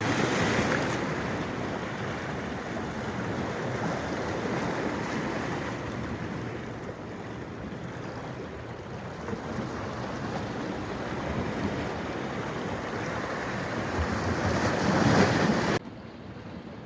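Rushing water, a dense steady noise, which cuts off suddenly near the end to a quieter, thinner steady noise.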